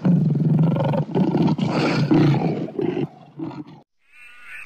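Lion roaring: one long rough roar followed by a couple of shorter grunts, ending just before four seconds in. After a brief pause, a fainter high-pitched animal call begins near the end.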